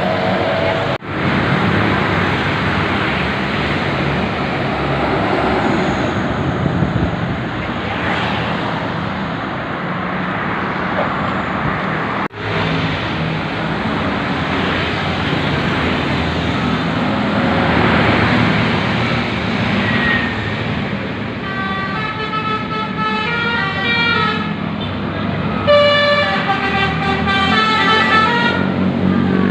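Bus engine and road noise, then, about two-thirds of the way in, a basuri "telolet" multi-tone bus horn plays a tune of quick stepped notes that go up and down in pitch, twice, with a short break in between.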